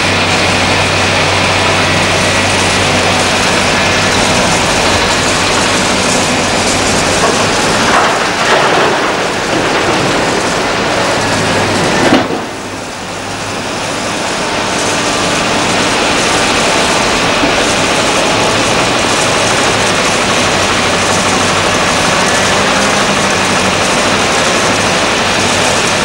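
Heavy diesel construction machinery (excavator and dump trucks) running steadily, with a low hum under a broad noisy din. About twelve seconds in there is a sudden knock, after which the sound drops and slowly builds back up.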